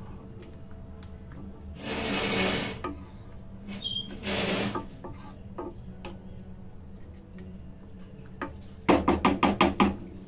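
Metal spatula stirring a simmering chicken curry in an aluminium kadhai: two scraping strokes with light clinks against the pan, then near the end a quick run of about eight sharp metal taps, over a steady low hum.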